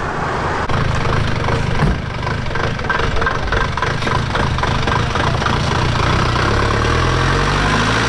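A motor vehicle's engine running steadily and loudly, its pitch rising slowly over the last second or two.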